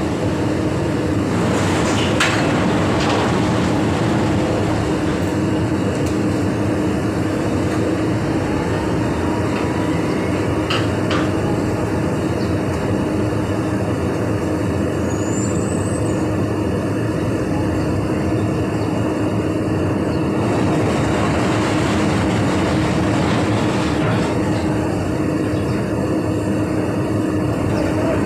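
Steady drone of heavy machinery running at a crushing plant, with a constant low hum. A few sharp knocks cut through it around two to three seconds in and again around eleven seconds.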